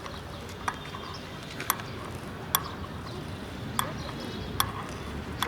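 Light metallic clicks, about one a second, from a spanner and the bearing cone nut being turned along a BMX bike's rear axle.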